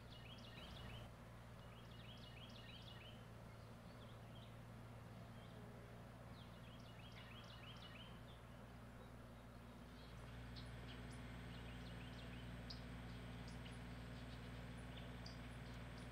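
Faint woodland songbird singing a short phrase of quickly repeated notes three times in the first half, then scattered single chirps, over a steady low background hum.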